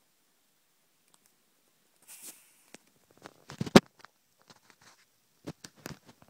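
Scattered small clicks and knocks over a quiet background. A soft rustle comes about two seconds in, a cluster of knocks ends in one loud sharp knock about three and a half seconds in, and a few more clicks follow near the end.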